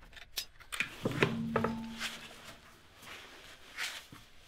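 Car wheel bolts being undone with a socket wrench and the road wheel being lifted off the hub: a series of clicks and knocks, with a heavier knock about a second in followed by a low ringing hum for about two seconds.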